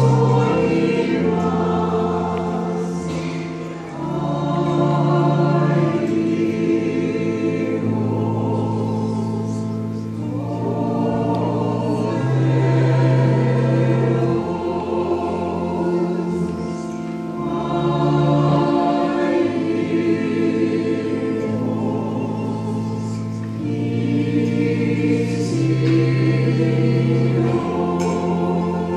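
Church choir singing a slow Greek Orthodox Good Friday hymn in long phrases, with low notes held under the melody.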